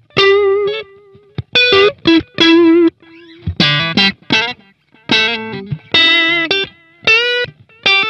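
Electric guitar played through a Boss Katana 100 modeling amplifier with an analog-type delay switched on: short single-note phrases with gaps between them, some notes with vibrato, and faint repeats lingering between the notes.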